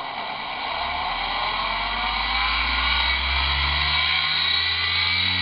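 Electric motor driven by a VFD spinning up. Its hum and high-pitched electronic whine rise in pitch and loudness over the first few seconds, then hold steady at speed. It is ramping up toward 100 Hz, although a 70 Hz limit had been set.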